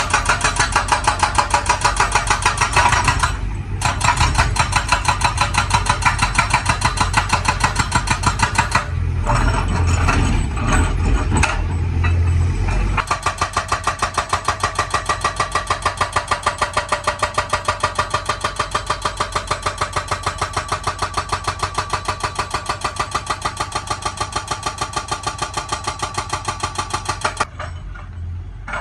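Excavator-mounted hydraulic breaker hammering hard rock in rapid, steady blows over the excavator's engine. It pauses briefly about three and a half seconds in, runs unevenly for a few seconds in the middle with the engine more prominent, then hammers steadily again until it stops near the end.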